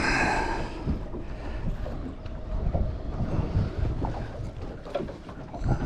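Wind buffeting the microphone: an uneven low rumble with irregular gusty thumps and a brief hiss at the start.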